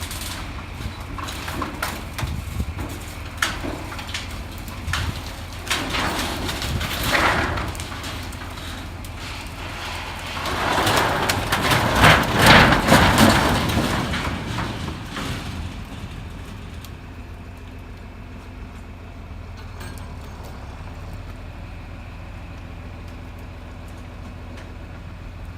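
John Deere 4020 tractor engine running steadily while a chained wooden corn crib knocks and cracks under the pull, then crashes over in a long loud collapse about eleven seconds in that lasts some four seconds; after that the tractor runs on alone.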